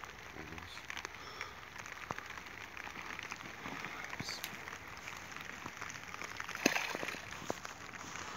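Dry reeds crackle and rustle as the angler crouches at the water's edge. About six and a half seconds in comes a short sharp splash as a mirror carp is let go back into the water.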